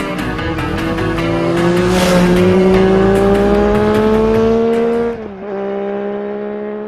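An engine revving up, rising steadily in pitch for about three seconds, dipping sharply at what sounds like a gear change around five seconds in, then holding steady. It plays over the end of rock music with drum hits in the first two seconds.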